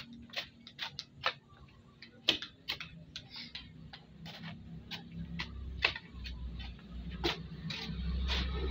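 Metal blade of a long-handled garden hoe chopping into and scraping dry, stony soil, giving irregular sharp clicks and scrapes about twice a second. A low rumble builds in the second half.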